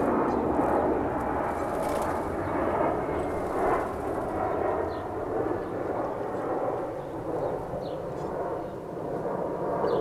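Steady outdoor rushing background noise with no single event standing out, and a few faint, short, high bird chirps now and then.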